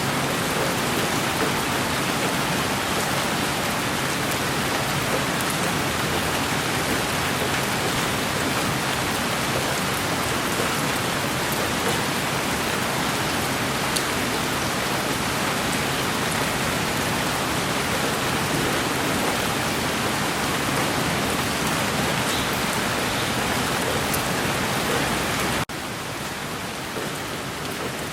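Steady rain falling on a surface, an even hiss with scattered faint drop ticks. Near the end it abruptly drops to a somewhat quieter level.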